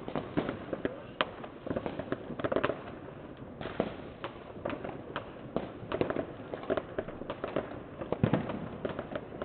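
New Year's fireworks and firecrackers going off around the neighbourhood: a dense, irregular string of cracks and bangs, with the loudest bang about eight seconds in.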